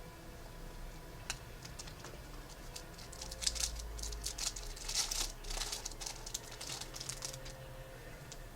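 Hockey trading cards and their pack being handled and flipped through: a run of quick rustles and light clicks, busiest in the middle.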